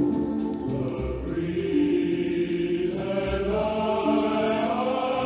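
Music from a vinyl LP playing on a Heyday belt-drive turntable through its built-in phono preamp, heard over speakers. Held sung notes sit over a low bass note that comes back about every two seconds.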